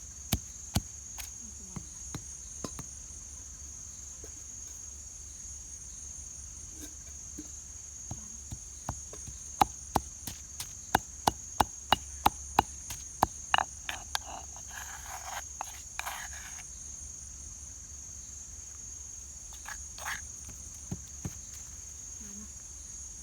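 Blade chopping on a cutting board in sharp strikes, with a quick run of blows about halfway through, followed by a brief scraping rustle. A steady high insect drone sounds underneath.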